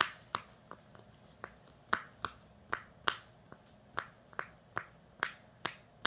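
Silicone pineapple push pop fidget toy, its bubbles pressed through one after another by a finger, giving a steady series of sharp little pops, a little over two a second, like popcorn popping.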